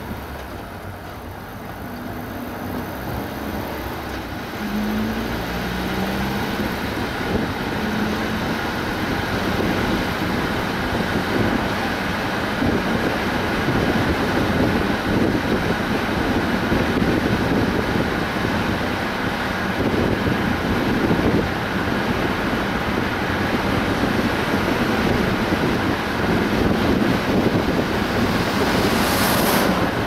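Car driving and picking up speed: the engine tone climbs in steps over the first several seconds, then tyre and road noise builds and holds steady. A short hiss sounds near the end.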